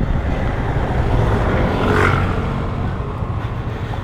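Riding noise from a motor scooter on the road: steady engine and traffic rumble with wind rushing over the microphone. The noise swells and fades about halfway through, like a vehicle passing.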